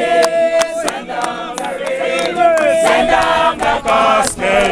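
Several voices singing together unaccompanied, with long held notes that bend in pitch. Sharp clicks come through roughly twice a second.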